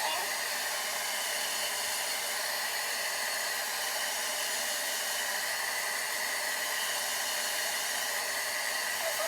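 Handheld blow dryer running on the cool setting, a steady hiss with a faint whine, switched on suddenly at the start and held at one speed.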